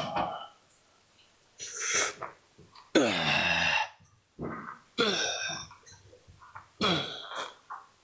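A man grunting and exhaling hard with effort while lifting weights on a leg machine. There are four grunts about two seconds apart, one per rep; the second is the loudest and drops in pitch.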